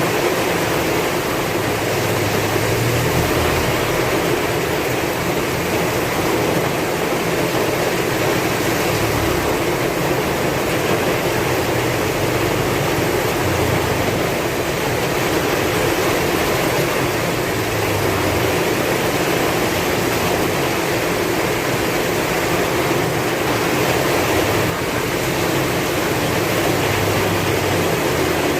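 Heavy rain falling in a dense, steady hiss with strong wind, a low rumble swelling and fading every few seconds.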